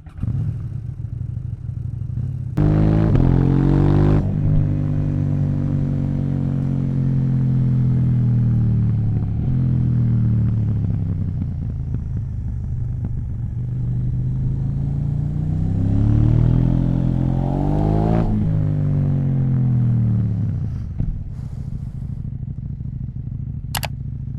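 KTM 790 Duke's parallel-twin engine through an Akrapovic exhaust, idling and revved twice: a quick rise about three seconds in that sinks slowly back to idle, then a slower climb about sixteen seconds in that drops back by about twenty seconds. A short sharp click near the end.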